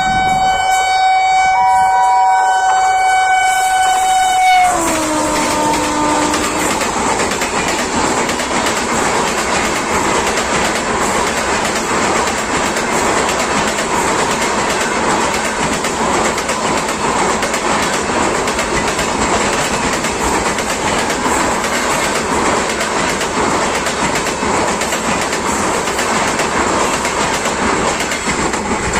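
Indian Railways WAP-7 electric locomotive sounding its horn in one long blast. The pitch drops sharply as the locomotive passes about five seconds in. Then the coaches rush by with steady wheel clatter on the rails.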